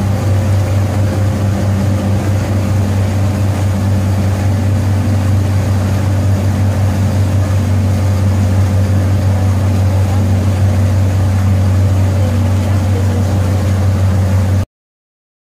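Engine of a small passenger abra water taxi running steadily under way, a low even drone over the rush of water. It cuts off suddenly about a second before the end.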